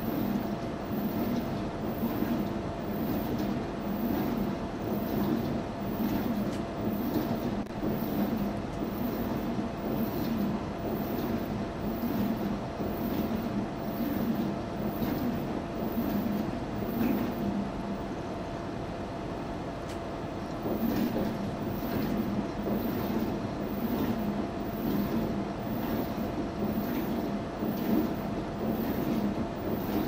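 Front-loading washing machine tumbling a load of laundry: a steady hum with a faint constant whine and a rhythmic swish of wet clothes rising and falling about once a second as the drum turns. It goes quieter for a couple of seconds past the middle, then the tumbling picks up again.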